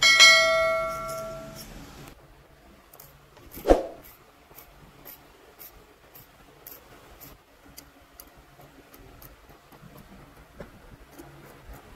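A single hard strike on a metal object that rings out with several tones and dies away over about a second and a half, then a dull knock a few seconds later and faint light ticking.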